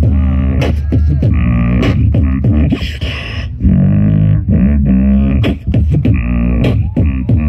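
Beatboxer performing live into a handheld microphone through a PA: sharp clicks and snare-like hits in a rhythm over a deep, steady hummed bass, with pitched vocal tones gliding up and down over it.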